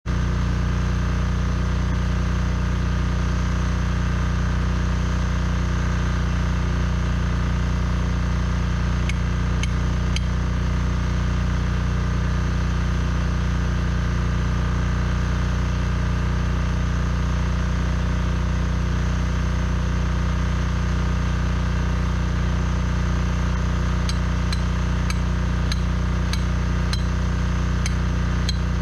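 Steady machine hum, unchanging throughout, with a few light ticks about nine seconds in and several more near the end.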